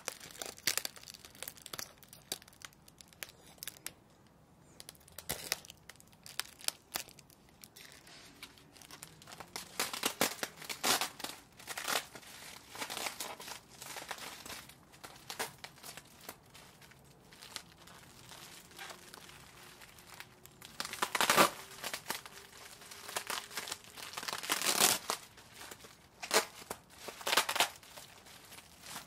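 Inflated plastic air-pillow packing being cut open and crumpled, crinkling and crackling in irregular bursts, the loudest about two-thirds of the way through.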